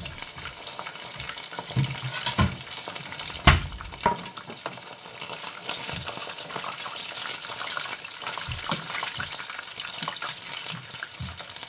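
Karaage chicken pieces deep-frying in hot oil in a stainless steel pot during their second fry for crispness: a steady crackling sizzle. A few sharp clinks of metal tongs against the pot stand out, the loudest about three and a half seconds in.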